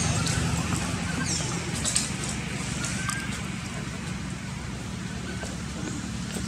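Steady low motor hum under outdoor background noise, with a couple of short high chirps.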